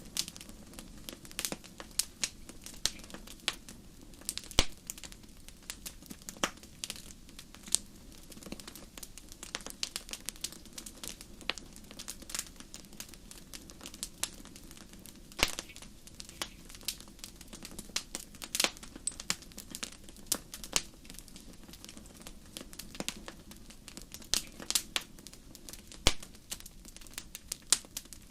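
Wood fire crackling: a steady run of irregular sharp pops and snaps over a faint low hiss, with a few louder pops standing out.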